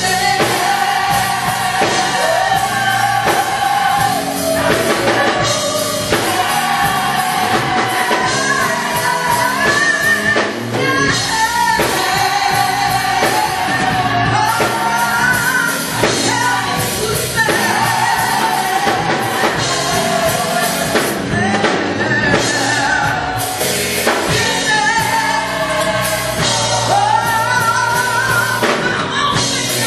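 Gospel choir singing a song together, with band accompaniment and a steady drum beat.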